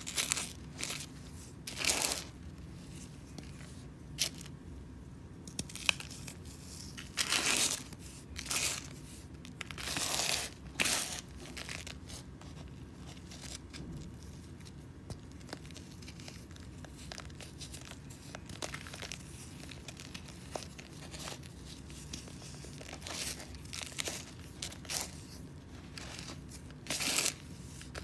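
Dry packed sand crumbled and broken apart by fingers: irregular crunchy, gritty bursts, some about a second long, with quieter crumbling between.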